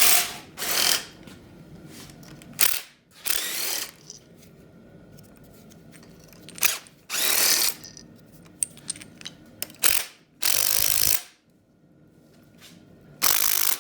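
Power tool (the 'gun') spinning out the loosened bolts on a 5.3 LS engine's cylinder heads, running in several short bursts with small metal clicks between.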